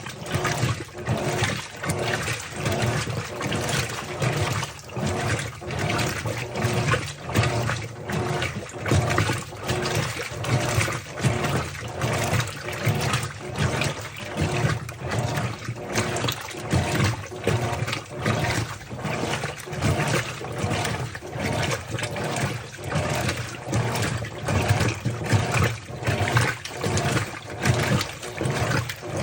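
Colormaq LCA15 washing machine agitating its load, water sloshing in a steady rhythm of a little over one surge a second.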